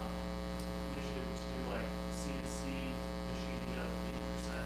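Steady electrical mains hum with faint, distant speech over it: an audience member asking a question away from the microphone.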